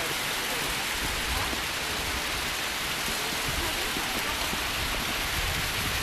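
Tall, thin waterfall splashing down a mossy cliff: a steady rushing hiss of falling water, with an uneven low rumble underneath.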